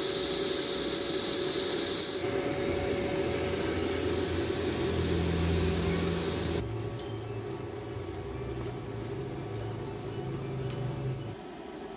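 Welding machine running with a steady arc hiss over a low hum. The hiss stops about six and a half seconds in, leaving the machine's hum, which cuts off near the end.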